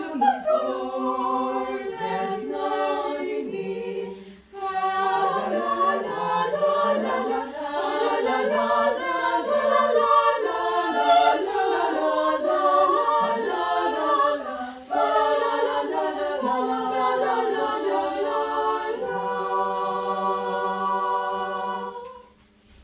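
Mixed choir of men's and women's voices singing a cappella in several parts, with short breath pauses between phrases. Near the end the choir holds a long final chord for about three seconds, then cuts it off together.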